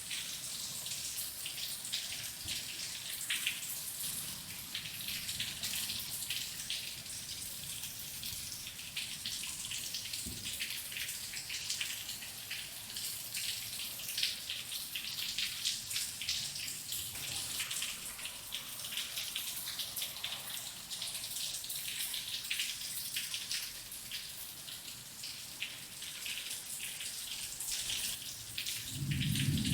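Rain falling steadily, a dense patter of drops. A low rumble of thunder starts at the very end.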